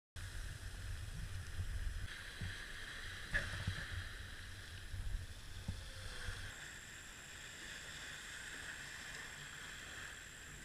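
Small waves washing over the sand, with wind rumbling on the microphone. About two-thirds of the way through the rumble drops away, leaving a quieter steady wash and a faint high whine.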